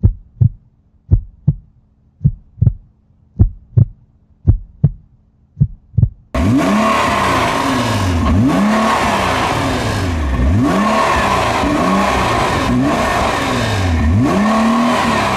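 A heartbeat sound effect: paired thumps, about two beats a second, over near silence. About six seconds in it cuts abruptly to a loud rushing sound with deep swooping tones that dip and rise about every two seconds.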